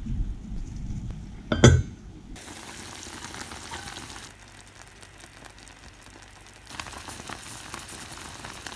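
Pot of kimchi soup at a boil, a steady bubbling hiss with fine crackle that gets quieter and then louder again. A single sharp clack about a second and a half in is the loudest sound.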